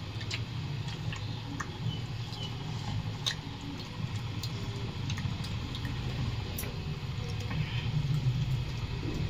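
People eating rice and curry by hand from steel plates: chewing, with soft squishing and scattered small clicks of fingers against the plates, over a steady low hum.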